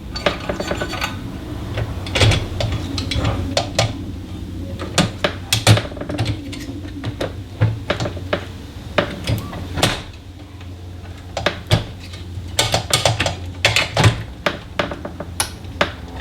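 Irregular clicks, taps and metallic clinks of smart-lock hardware (the inside panel and its small parts) being handled and fitted against a door.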